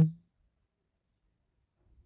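The tail of a low, steady electronic buzzing tone, which cuts off within the first quarter second and is followed by near silence.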